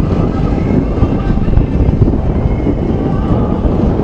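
Wind buffeting the microphone: a loud, uneven low rumble that covers the scene.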